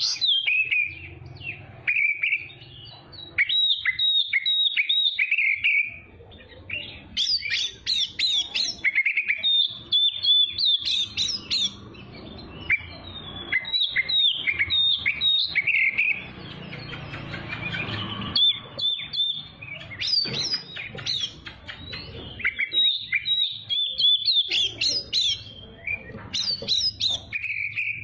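Oriental magpie-robin singing a rapid, varied song of whistles, chirps and sweeping notes, phrase after phrase with short pauses between.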